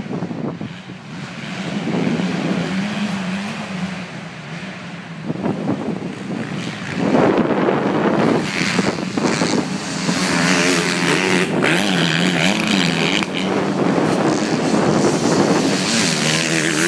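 MX2-class motocross bikes racing past, their engines revving up and down through the gears. The sound grows louder from about seven seconds in as the bikes come closer.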